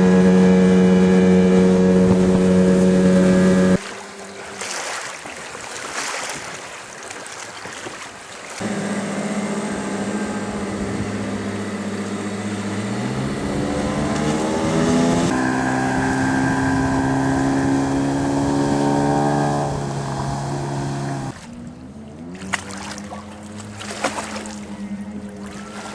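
Small boat motor running steadily in stretches, its pitch climbing once about halfway through as it speeds up. Between the stretches of motor there is a quieter spell of wind and water noise.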